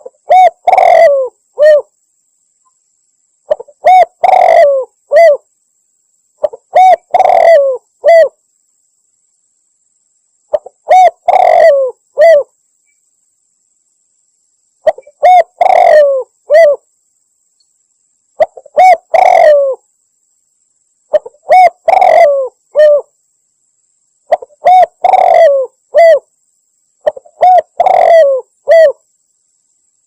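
Spotted dove (tekukur) cooing, played as a bird-lure call: a phrase of several coos, repeated nine times about every three to four seconds with short silences between.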